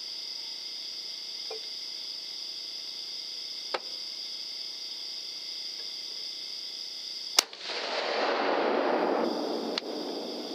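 A single sharp, loud shot about seven seconds in, the one shot that dropped two wild hogs, followed by about two seconds of loud rustling noise. A small click comes a few seconds before the shot.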